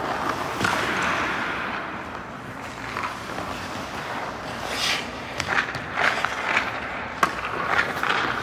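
Skate blades scraping across rink ice. In the second half comes a run of sharp clacks, about two a second, of hockey sticks and pucks striking the ice.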